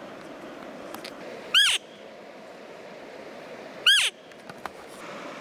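Elk cow call blown twice: two short, loud, nasal mews a couple of seconds apart, each rising then dropping in pitch, imitating a cow elk to hold the bull.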